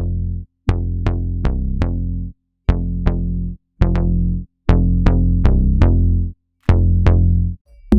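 Electronic drum-machine bass line: short, deep synth-bass notes in phrases with brief gaps, each note starting with a sharp click. It plays through a heavy parallel compressor while its tilt is turned down, so the low end is compressed harder.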